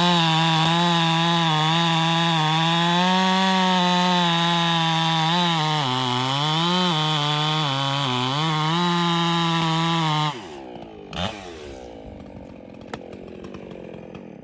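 Echo professional two-stroke chainsaw running at high revs through a cut in almond wood, its engine pitch sagging briefly several times as the chain bites under load. About ten seconds in the engine sound drops off suddenly and winds down, with a single knock a second later.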